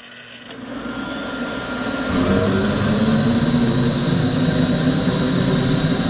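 Shenandoah 315,000 BTU waste oil burner starting up: the burner's blower motor spins up, the sound rising over the first two seconds, then it runs steadily with a low rumble and a hiss.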